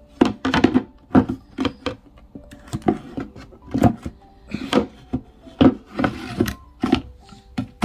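Wooden game set being handled: many irregular knocks of wood against wood, with some rubbing and scraping.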